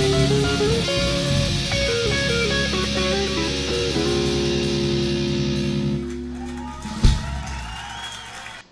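Electric guitar played through an amplifier along with a recorded band track. About six seconds in the playing winds down to a held, fading chord, a single sharp hit comes about a second later, and the sound cuts off near the end.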